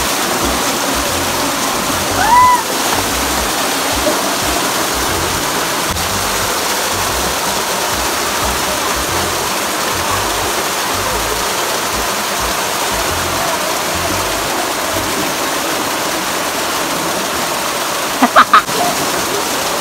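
Water of a small waterfall rushing steadily down a rock chute, loud and unbroken. A short rising-then-falling vocal call comes about two seconds in, and a few brief loud bursts come near the end.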